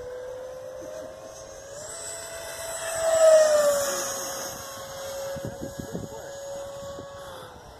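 E-flite Viper 70mm electric ducted fan of a foam RC Viggen jet whining in flight on 6S power. The pitch steps up about two seconds in; a little after three seconds the whine gets loudest and falls in pitch as the jet passes. It then holds steady and drops away near the end as the throttle comes back.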